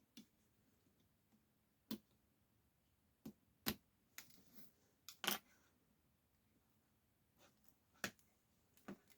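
Scattered small clicks and taps of a hand tool against the plastic and metal parts of an opened tablet as it is worked apart, about ten in all, the loudest a little past five seconds in.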